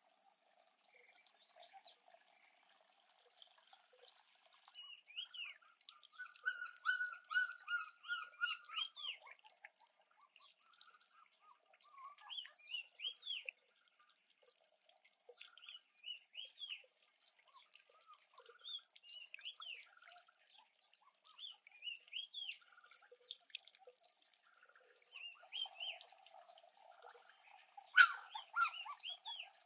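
Birds chirping in short, repeated calls, thickest a few seconds in, over a steady high-pitched drone that stops about five seconds in and comes back near the end. Near the end a single short, sharp sound stands out louder than the rest.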